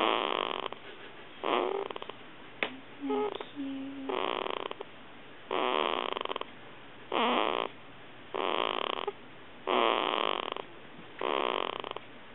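Two-week-old baby snoring in sleep: a snore about every second and a half, each about half a second to a second long. About three seconds in, a brief click and a few small squeaks.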